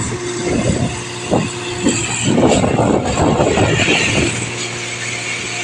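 Concrete pump running with a steady engine hum while a ball is pushed through its delivery pipe. Irregular knocks come through the hum, growing into a dense run of clattering about two to four seconds in.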